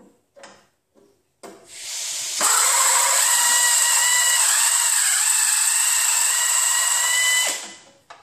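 Electric drill drilling out a spot weld through two layers of car-body sheet steel. It spins up about a second and a half in, bites into the metal and runs steadily with a high whine for about five seconds, then stops.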